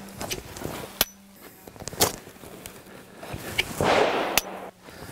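Jacket fabric and a pocket flap rustling as a pistol is drawn from a concealment pocket, with a swell of rustle about four seconds in. Several short, sharp cracks or clicks come about a second apart, one right after the rustle.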